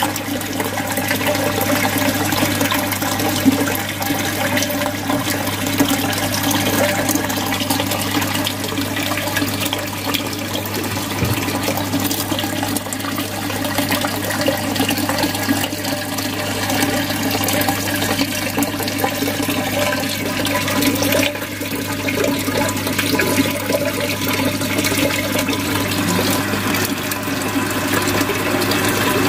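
Aquarium filter outflow pouring in two streams onto the surface of the tank water, a steady splashing trickle, because the water level has dropped low (shallow). A steady low hum lies beneath it.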